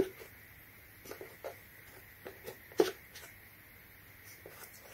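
Steel countersink drill bits clicking and tapping against each other and against the holder as they are fitted into the slots of a wooden storage box. About eight light, irregular clicks, the loudest nearly three seconds in.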